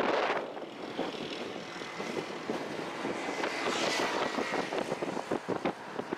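Wind buffeting an outdoor microphone in irregular gusts, over a steady background rush, with a faint thin steady whine through the middle.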